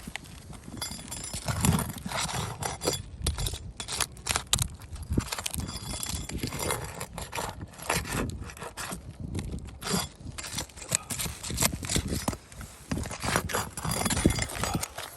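Irregular scraping and sharp clicks of old asphalt roof shingles being pried up and their nails worked loose.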